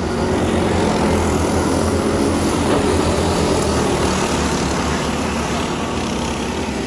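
Several racing go-kart engines running together as the karts lap, growing louder about a second in as karts pass close by and easing off a little in the last few seconds.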